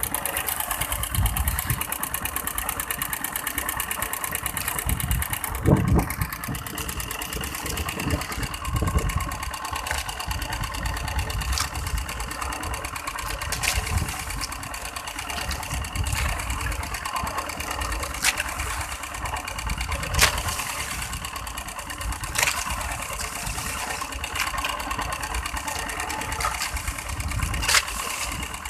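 Small boat engine running steadily at low revs aboard an outrigger fishing boat, with uneven low rumble and a few sharp clicks spaced a couple of seconds apart.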